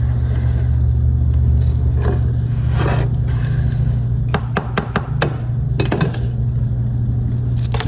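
A utensil scraping and tapping in a pan while eggs are stirred, with a few sharp clicks between about four and six seconds in, over a steady low hum.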